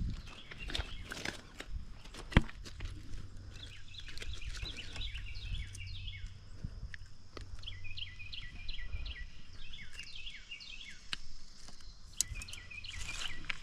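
A songbird singing, with runs of quick high chirps from about four seconds in. Under it there are scattered handling clicks and one sharp knock a couple of seconds in.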